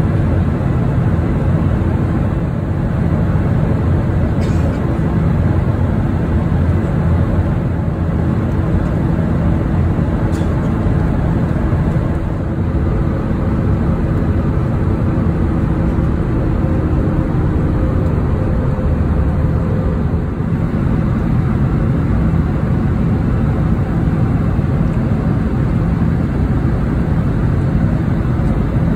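Steady low rumble of aircraft cabin noise inside an Airbus A320 in flight. A faint hum over it fades away about two-thirds of the way through.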